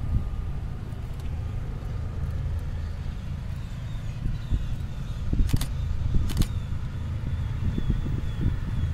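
Low, steady rumble of a motor vehicle, with two sharp clicks a little over halfway through.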